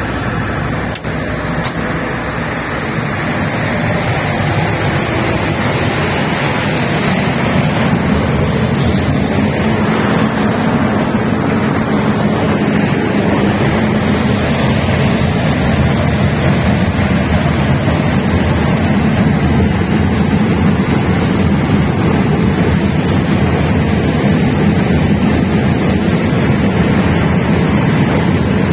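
Large 500 kVA diesel generator running, a steady deep rumble with hiss above it. There are two sharp clicks about a second in, and the sound grows louder over the next few seconds before holding steady.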